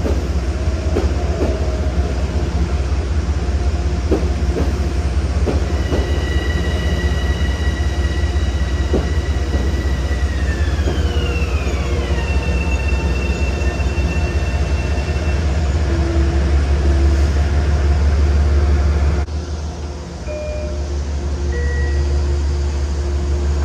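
A train running through the station: a deep, steady rumble with scattered clicks from the wheels on the rails in the first several seconds. A high multi-tone electric whine slides down in pitch about halfway through, then holds for a few seconds.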